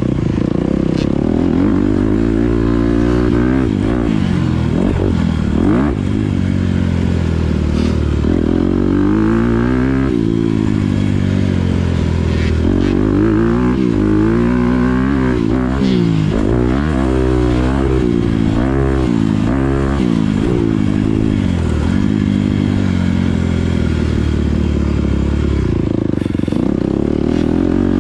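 Four-stroke single-cylinder engine of a Honda CRF250R motocross bike at race pace, rising and falling in pitch every second or two as the throttle is opened and shut through corners and over bumps.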